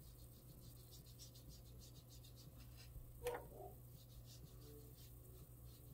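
Near silence: a water brush scrubbing faintly on paper under a low hum, with one brief, faint pitched animal call about three seconds in.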